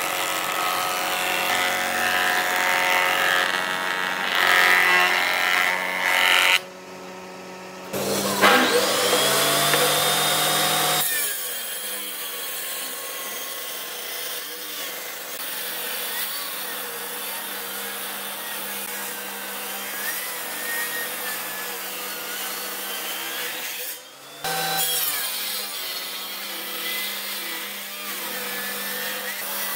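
Woodworking machines cutting old hardwood: a planer running and shaving a board, which stops abruptly after about six seconds. Then a table saw comes in, its pitch rising as it gets up to speed, and runs steadily, ripping through a thick weathered beam, with a short break near the end.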